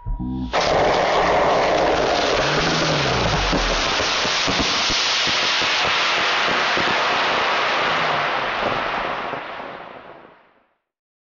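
Model rocket motor firing at lift-off: a loud, steady rushing hiss that starts about half a second in, holds for several seconds and fades away near the end.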